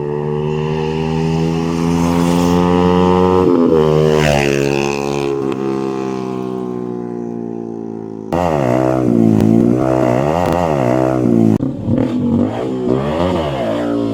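Yamaha R15 V3's 155 cc single-cylinder engine through an aftermarket M4 exhaust: the note climbs as the bike accelerates, wavers, then slowly falls away. After an abrupt cut about eight seconds in, the throttle is blipped repeatedly, the pitch jumping up and down several times.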